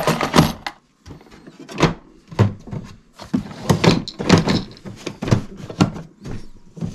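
Plastic parts organizer and toolbox being handled and packed away: a run of about a dozen irregular hard plastic clacks and knocks as compartments, lid and latch are moved and shut.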